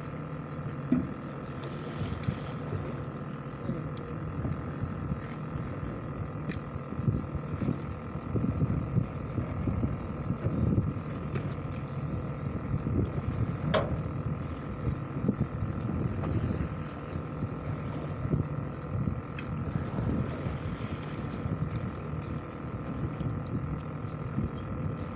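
Fishing boat's engine running steadily, with wind gusting on the microphone.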